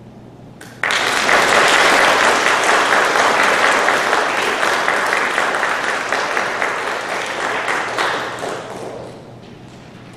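Audience applauding. The applause starts suddenly about a second in, holds steady, then dies away near the end.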